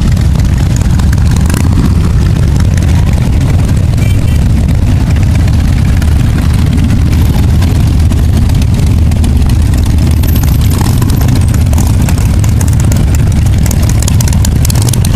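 A long column of motorcycles, mostly cruisers and touring bikes, riding slowly past in procession. Their engines blend into one loud, steady, deep exhaust rumble.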